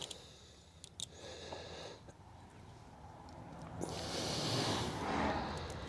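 A man's heavy breath out, about four seconds in, as he strains to push a plug into a motorcycle tyre puncture, with a couple of faint clicks about a second in.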